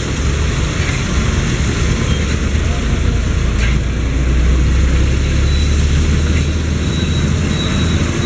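Road traffic: motorcycle and scooter engines running and passing, over a steady low engine rumble that swells about midway.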